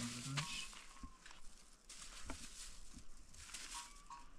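Crackly rustling of a thin plastic bag handled in the hands, after a short voice at the start. A few brief high chirps sound about a second in and again near the end.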